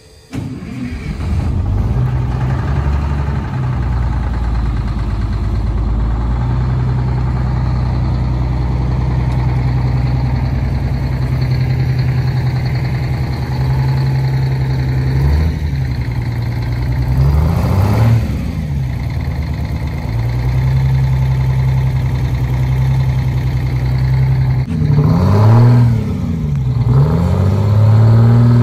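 Diesel engine of a 1989 Crown Super Coach school bus running steadily, revved up and back down briefly about 17 seconds in and again about 25 seconds in.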